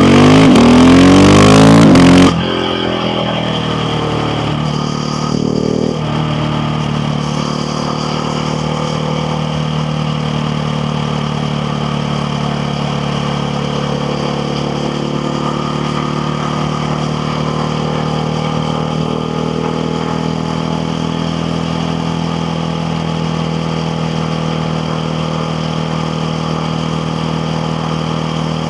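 KTM Duke 690R single-cylinder engine accelerating hard with a rising note for about two seconds, then dropping abruptly to a steadier, quieter run. A change in the note comes a few seconds later, and the engine then cruises at an even pitch.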